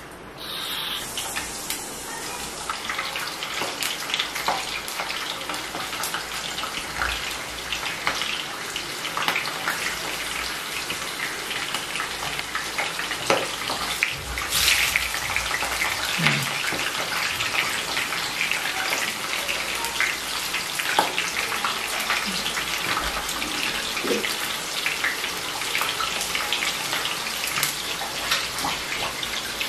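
Hot oil sizzling steadily with scattered small crackles and pops as chicken-stuffed chillies fry in a pan.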